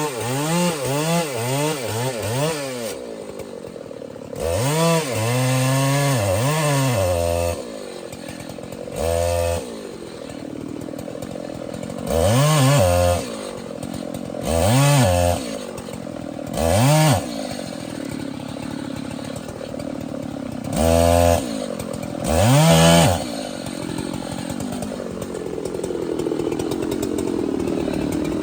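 Large two-stroke chainsaw revved up in about eight short bursts, each rising in pitch and falling back, and dropping to a lower running speed between bursts.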